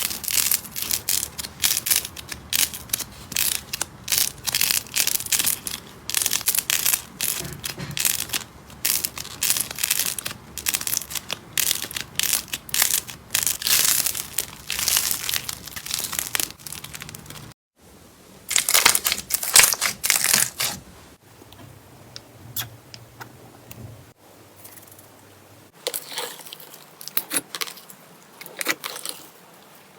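Slime being squeezed and pressed by hands: dense, crackly squishing and popping. The sound breaks off abruptly and restarts several times, quieter in the later stretches.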